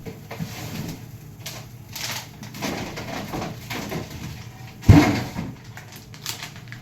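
Kitchen handling noises, with items and containers being moved and set down, and one loud knock about five seconds in.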